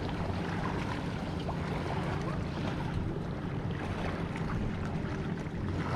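Boat motor running steadily, with a low even hum and wind noise on the microphone.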